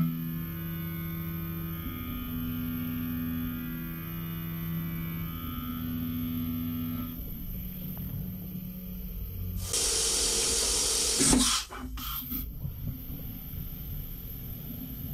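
Fanuc RoboDrill CNC vertical mill machining a plastic block under flood coolant. Steady humming tones run for about seven seconds, then a loud hiss of coolant spray lasts about two seconds, followed by a few quick knocks.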